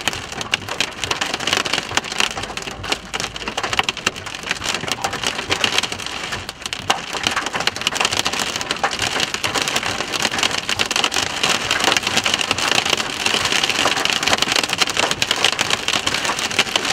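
Heavy rain pelting the vehicle's roof and windshield, heard from inside the cab as a dense, steady patter that grows a little louder in the second half.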